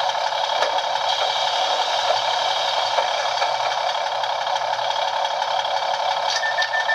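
Sound decoder of a Bachmann OO gauge Class 150 DMU model playing the diesel unit's idling engine through its small onboard speaker, steady and thin-toned, with a few faint clicks. About six and a half seconds in, a rapid run of short high beeps starts over the idle.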